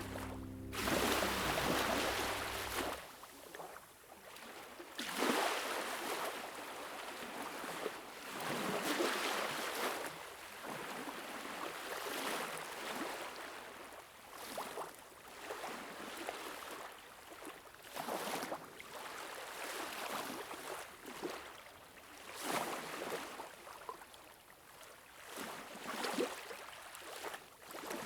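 Water lapping and splashing in uneven surges every one to three seconds.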